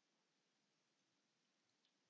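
Near silence: faint room hiss, with one faint click near the end.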